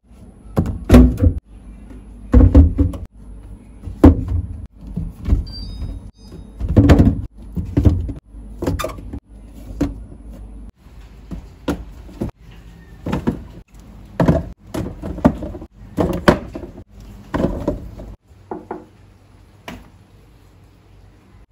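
Food containers and items being handled and set down in a refrigerator: about twenty irregular knocks, clatters and thuds, some with short rattles.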